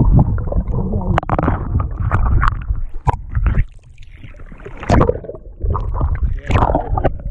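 Water sloshing and gurgling around a camera held at the water's surface beside a boat, with irregular knocks and clicks, quieter for about a second in the middle.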